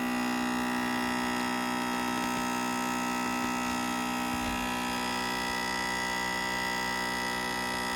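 Acer Predator Orion 3000 gaming desktop PC giving off a loud, steady buzz that holds one pitch throughout, an unwanted fault noise from the machine.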